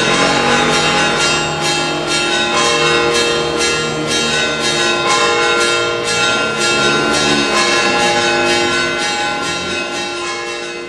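Church bells ringing in a fast, even peal, their overlapping tones sustained between strikes and slowly fading toward the end.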